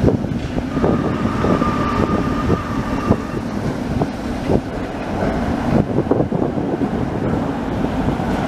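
Tatra T3 tram passing close by, its wheels clattering and knocking over the rails. A high steady tone sounds for about two seconds near the start.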